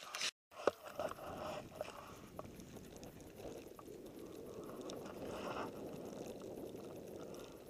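Skis moving through deep powder snow: a steady low hiss that swells a little about halfway through, with a few faint clicks just after the start.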